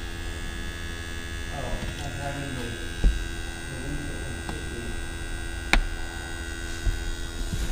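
Steady electrical hum, with two sharp clicks, about three and about six seconds in.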